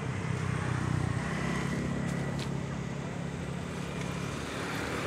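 An engine running steadily, a low hum that shifts slightly in pitch about a second in.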